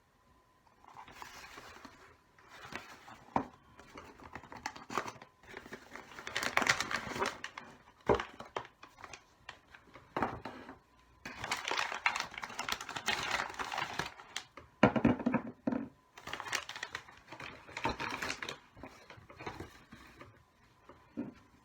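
Crinkling and rustling of wrapping being handled, in irregular bursts with a few sharp clicks in between.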